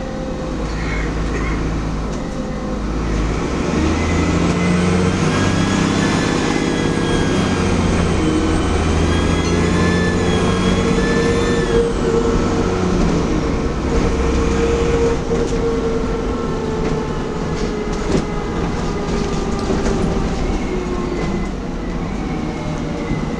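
Interior sound of a Dennis Trident double-decker bus's diesel engine under way. A high turbo whistle builds from about three seconds in, wavers over the engine note for several seconds and fades away about halfway through, while the engine runs on.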